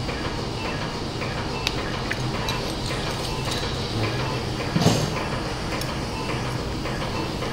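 Steel surgical instruments clicking and clinking now and then over a steady low hum of operating-room equipment, with one louder clatter about five seconds in.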